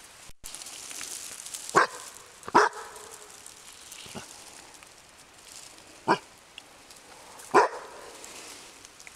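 Hunting dog barking in single, separate barks: four loud ones a second or more apart and one fainter one, over a steady rustling hiss.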